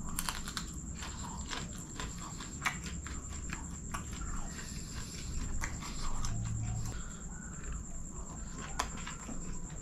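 Close-miked eating: chewing a handful of fried rice, with wet mouth clicks and smacks scattered irregularly throughout, and a short low hum about six seconds in.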